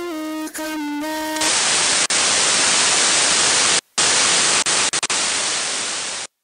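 A song's final held note ends about a second and a half in, giving way to loud white-noise static. The static drops out briefly a few times, then cuts off suddenly near the end.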